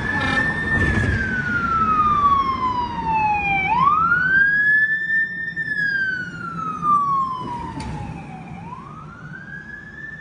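Fire engine siren wailing: the pitch falls slowly for about three seconds, then sweeps quickly back up, twice. It grows fainter over the last few seconds as the engine passes and drives away.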